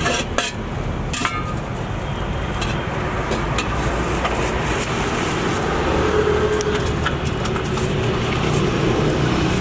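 Steady road traffic running past, with a few sharp clicks in the first second or so.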